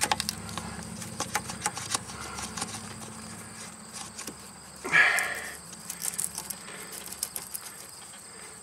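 A rubber hose being worked by hand onto a metal line, with a run of small clicks and rattles from the hose and its clamp, and one louder short squeak about five seconds in. Insects chirp steadily behind.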